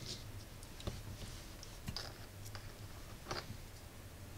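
A few faint, scattered clicks and taps of a small plastic gadget, a multifunction arc lighter and flashlight, being handled in the hands.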